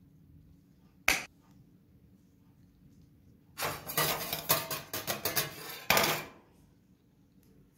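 Flat metal scrapers striking and scraping on a stainless steel ice-cream cold plate: one sharp clank about a second in, then a rapid run of clacks and scrapes for about two and a half seconds, ending with a loud clack.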